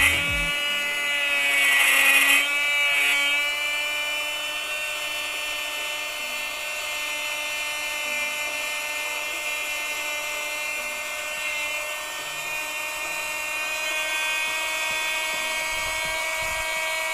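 Two-way 240V electric air pump for inflatables running at a pool valve, a steady high motor whine after spinning up, with a louder, hissier stretch about two seconds in.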